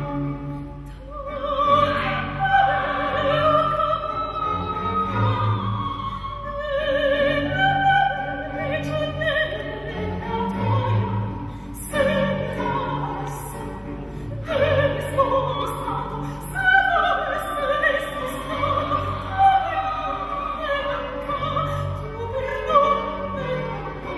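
Classical operatic singing with wide vibrato, in separate sung phrases, over instrumental accompaniment with held low notes.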